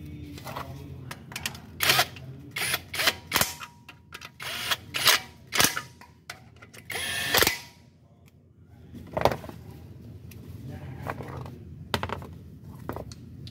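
Metal hand tools clicking and clinking on the bolts of a Toyota 2AR-FE engine's balancer shaft assembly: a quick run of sharp clicks, then a brief rattle about seven seconds in and a few more scattered clicks.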